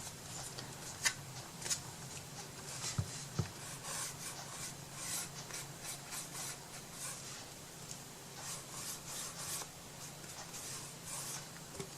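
Repeated soft rubbing and scraping strokes of hand craft work on paper or wood, with a few light clicks about one and three seconds in, over a faint steady hum.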